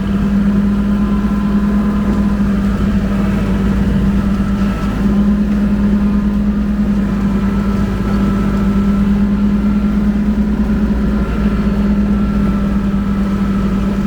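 Kubota L2501 compact tractor's diesel engine running steadily at working speed while it drives a rotary brush mower, a loud even drone with a strong low hum.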